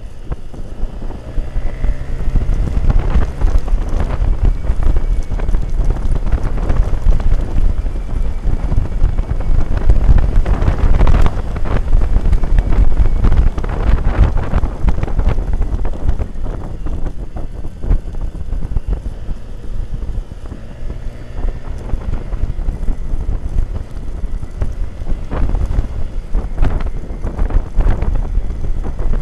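Wind rushing and buffeting on the microphone of a moving motorcycle, with the bike's engine running underneath. The rush swells and eases, loudest about a third of the way through.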